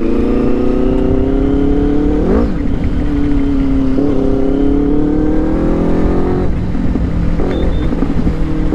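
Benelli 600i's inline-four engine running hard on the move, its pitch climbing slowly under acceleration and dipping about four seconds in, with wind rush on the microphone.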